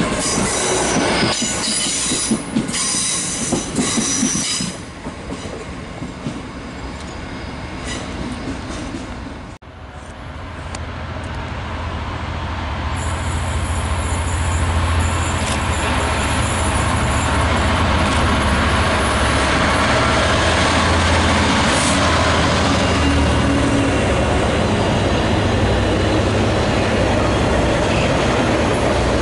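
The rear of a Great Western Railway Intercity Express Train runs past with wheel-on-rail noise that falls away after about five seconds. After a cut about ten seconds in, a DRS Class 66 diesel locomotive approaches with a long intermodal container train. Its two-stroke diesel's low drone builds up, and then the loaded container wagons roll past with steady wheel and rail noise.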